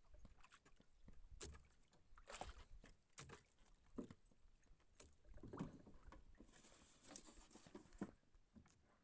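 Faint water lapping at a small boat with scattered light knocks and clicks, near silence overall.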